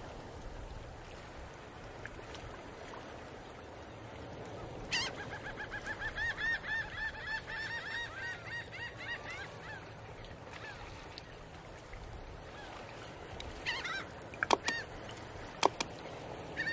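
A bird calling in a fast run of repeated short notes, about five a second, for roughly four seconds starting about five seconds in. A few sharp clicks follow near the end.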